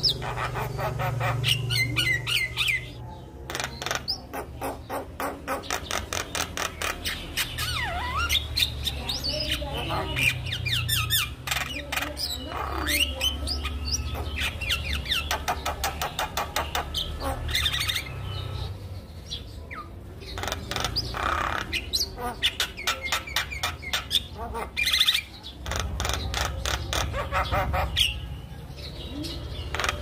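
Javan myna singing a long, varied song of rapid clicking chatter, harsh squawks and gliding whistled notes.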